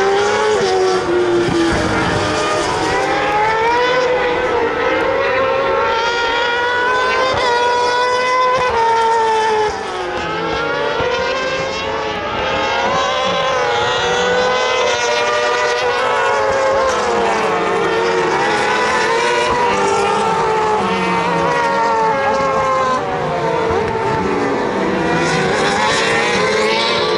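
Racing sidecar outfits' engines running hard through a bend, several at once. Their pitch rises and falls over and over with throttle and gear changes.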